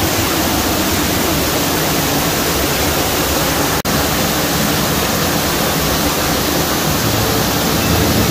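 Waterfall pouring, heard up close from behind its falling curtain of water: a loud, steady rush, broken by a split-second gap about four seconds in.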